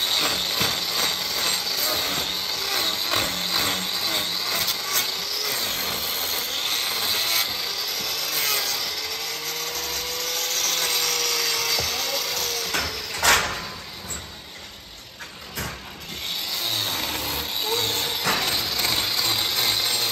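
Angle grinder with a hoof-trimming disc grinding a cow's hoof, its high whine rising and easing as the disc is pressed in. About two-thirds through there is a sharp knock, the grinding drops away for a couple of seconds, then starts again.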